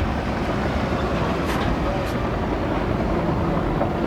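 Steady rumble of a helicopter's engine and rotor, heard from on board.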